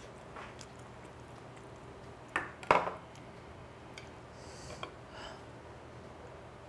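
Metal chopsticks clicking against a small dish while picking up stir-fried chicken and a slice of pickled radish, with two sharper clatters about two and a half seconds in and a few lighter ticks later.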